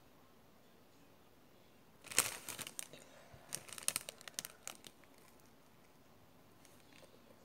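Candy wrapper crinkling and tearing as it is pulled off a sweet: a burst of crackles starting about two seconds in and going on for about three seconds, loudest at the start.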